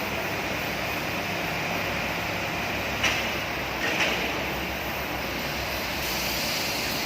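Steady noise of workshop machinery running, with two short, sharper sounds about three and four seconds in.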